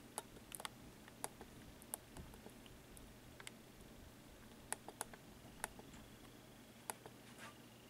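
Faint, irregular sharp clicks and ticks, about a dozen scattered unevenly through a quiet room, with no steady rhythm.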